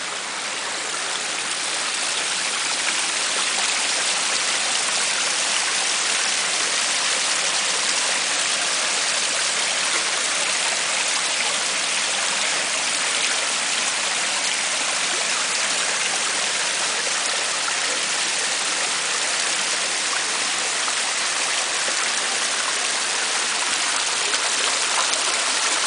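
Man-made cement garden waterfall, water falling and splashing into a pond in a steady rush that grows a little louder in the first couple of seconds.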